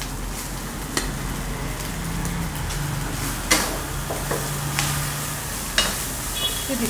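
Rice and vegetables sizzling in a metal kadai over a gas flame as a metal spatula stirs and scrapes through them, with a few sharp knocks of the spatula against the pan.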